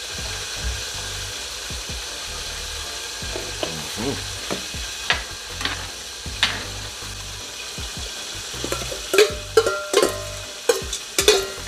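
Food sizzling steadily in hot oil, with a utensil clinking and scraping against a metal pot. The clinks come thicker near the end.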